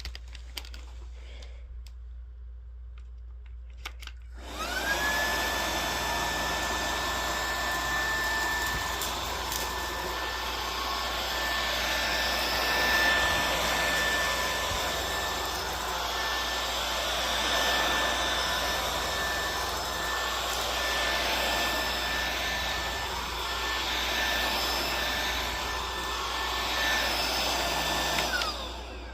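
DEENKIE cordless stick vacuum switched on about four seconds in. Its motor spins up to a steady high whine and runs through forward and backward passes over carpet, then spins down near the end.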